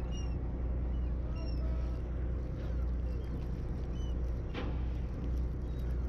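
Sportfishing boat's engine running with a steady low hum, with short, high, falling chirps scattered over it and a single sharp click about halfway through.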